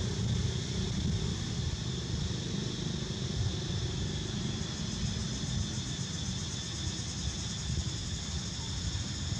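Steady outdoor background noise: a low rumble with a constant high-pitched drone above it, and no distinct events.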